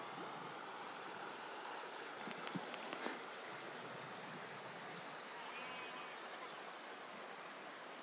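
Shallow river running steadily over a stony bed, a constant rushing of water, with a few light knocks about two and a half to three seconds in.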